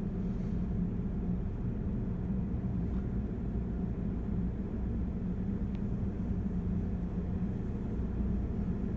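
Steady low rumble and hum heard from inside a car's cabin, from the idling engine and the car wash's machinery.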